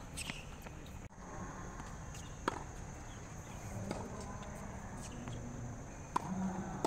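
Tennis ball being struck by rackets and bouncing on a hard court during a rally: four sharp pocks spaced roughly one and a half to two and a half seconds apart.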